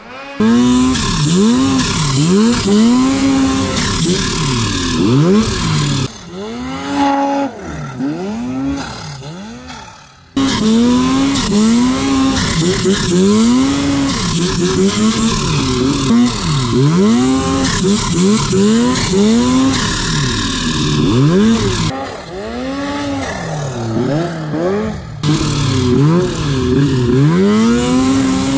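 Snowmobile engines revving hard and easing off again and again, the pitch climbing and dropping in quick repeated swells, as sleds are ridden through snow.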